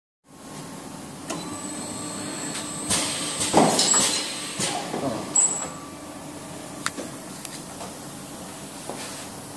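Pneumatic rotary ayran cup-filling machine running: a steady mechanical hum with sharp clicks and knocks, and a louder patch of clatter and short hissing bursts about three to five seconds in, then steadier running with occasional clicks.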